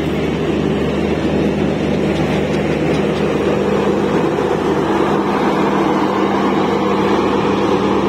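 Kutch Express passenger coaches rolling past along the platform: a loud, steady rumble of wheels on the rails with a low, even hum.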